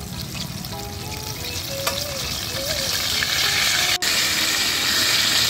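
Battered chicken legs deep-frying in hot oil in an iron kadai, a steady sizzle and bubbling as they get their second fry. The sound drops out for an instant about four seconds in, and the sizzle is louder after it.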